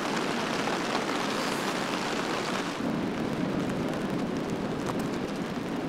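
Steady rush of heavy rain in a storm. About three seconds in the sound shifts, losing its hiss and turning deeper.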